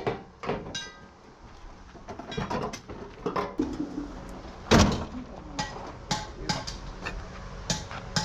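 Irregular knocks and clanks, with one loud bang about five seconds in and a quicker run of knocks near the end, over a low hum.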